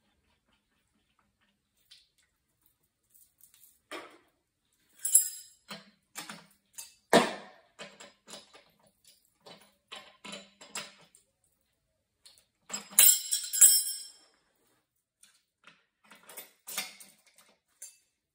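Scattered clicks, clinks and light scrapes of metal parts and hand tools as an oil burner's nozzle and electrode head is taken apart. There is a sharp knock about seven seconds in and a bright jangling rattle of metal a little before the two-thirds mark.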